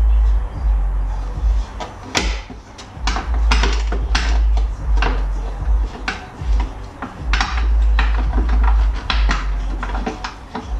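Irregular metallic clinks and knocks of a motorcycle drive chain and rear wheel being worked loose by hand, over a heavy low rumble that comes and goes.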